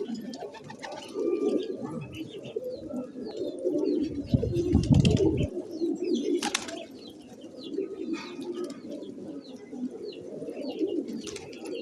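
Several pigeons cooing continuously and overlapping, with short high chirps mixed in. A louder low burst comes about four seconds in, followed by a sharp click a little later.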